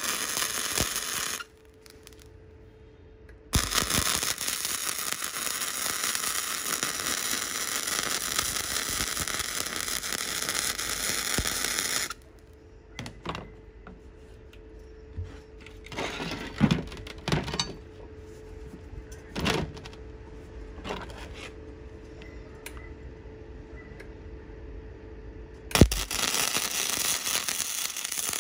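Electric arc welding on steel: long runs of crackling, hissing arc that stop and start. In the gaps between runs there is a steady hum and a few knocks and clinks, and a sharp bang comes just before the last run.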